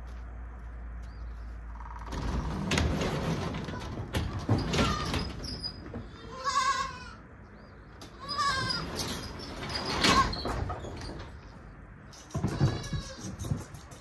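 Goat kids bleating several times in high, wavering calls, while an overhead garage door is rattled and lifted open.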